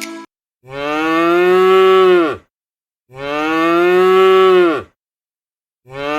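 Cow mooing: three long, identical moos, each a little under two seconds, with the pitch dipping as each call ends; the third begins near the end.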